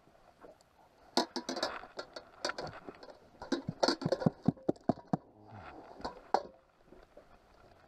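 Freshly landed whitefish being unhooked in a rubber-mesh landing net: a run of irregular knocks, taps and rattles from the net's metal frame, the mesh and the fish, starting about a second in and dying away after about six seconds.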